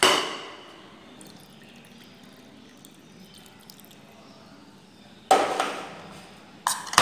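Milk poured from a tin can into a ceramic bowl of longan fruit, splashing and trickling. It comes in three sudden louder spells that fade away: at the start, about five seconds in, and near the end.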